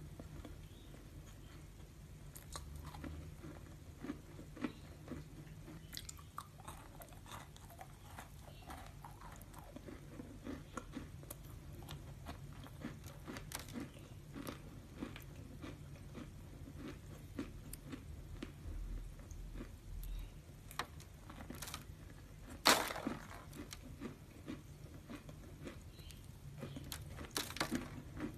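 Close-miked chewing of a crumbly cookie: a steady run of small soft crunches and mouth sounds, with one sharper, louder crunch about two-thirds of the way through and a few more near the end.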